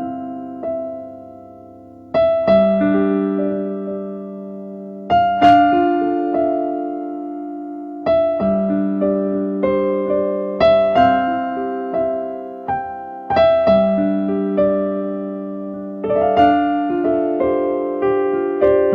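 Slow piano-sounding chords played on a keyboard, a new chord struck about every three seconds and left to ring out, with no singing.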